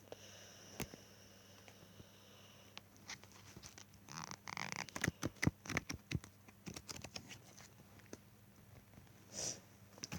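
Faint rustling with a quick run of short clicks and taps in the middle, typical of something being handled. A faint high whine sounds in the first couple of seconds.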